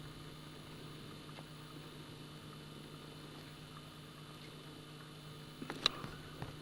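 Steady low electrical hum in a quiet room. Near the end come a few light clicks, the sharpest about six seconds in.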